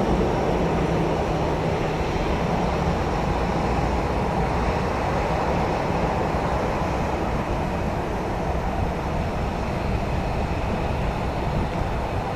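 Steady low rumble of the distant CFM56 engines of an Airbus A319-111 on final approach, mixed with wind buffeting the microphone.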